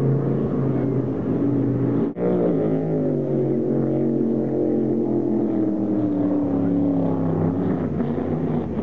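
Offshore racing powerboats' engines running flat out as the boats speed past. There is a brief dropout about two seconds in, then a second boat passes with its engine note slowly falling in pitch as it goes by.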